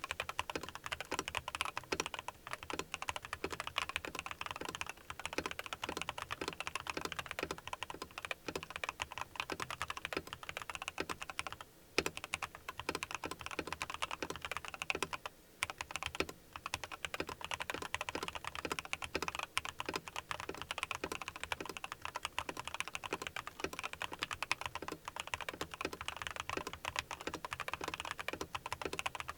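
Typing on a mechanical keyboard fitted with tall SA-profile keycaps, a Yunzii YZ75 Pro modded with PE foam and tape: a fast, continuous run of key clacks that pauses briefly twice near the middle.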